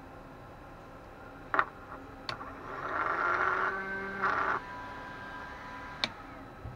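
Small cooling fan from an Eltek Flatpack power supply, powered briefly on the bench to test its balance. Two sharp clicks come first. The fan then runs loud for about two seconds before it is cut off and winds down, and a last click follows. One of its blades is heavier, so the fan is out of balance.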